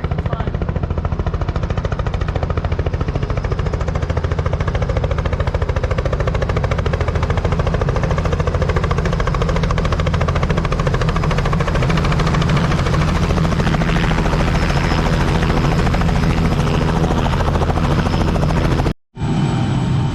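Robinson R44 helicopter running close by, its rotor giving a steady, rapid chop over the engine noise. The sound drops out for a moment near the end.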